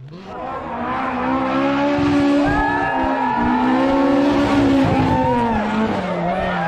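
Rally car engine revving up hard at the start and held at high revs for several seconds while the tyres squeal through a slide, the revs falling away near the end.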